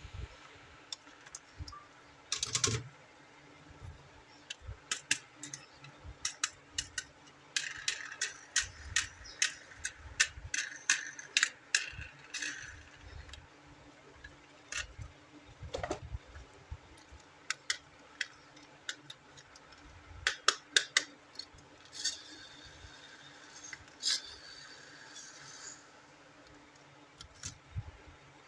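Hands handling small plastic toys and their packaging: scattered sharp clicks and taps, with two stretches of plastic rustling.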